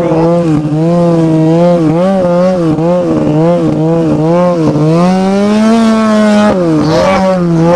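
Ski-Doo MXZ 700 snowmobile's two-stroke twin engine revving up and down under throttle while being ridden, its pitch rising and falling about twice a second. Just past the middle it holds a higher note for about a second and a half, then drops back.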